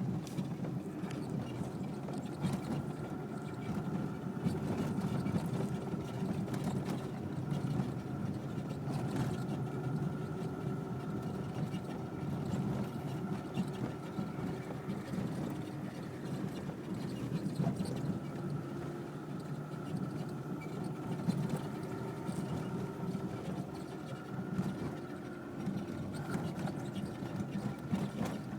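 Cabin noise of a running VAZ 21099, with the intermittent grinding creak from the dashboard under the steering wheel that the owner is trying to trace. Steady running noise with a few faint clicks and creaks scattered through it.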